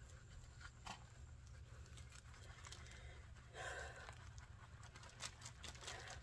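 Faint heavy breathing of a person out of breath, with one louder breath about three and a half seconds in and a few faint clicks.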